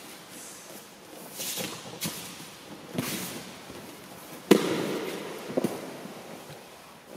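Swish and rustle of cotton aikido uniforms as two people move, then a loud thud about four and a half seconds in as the partner is brought down onto the tatami mat, followed by a smaller thump a second later.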